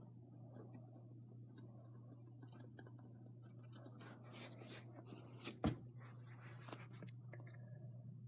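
Faint scratching and rustling of a long-haired Syrian hamster moving about in its cage bedding, over a steady low hum. The rustling grows louder about four seconds in, with one sharp click at about five and a half seconds.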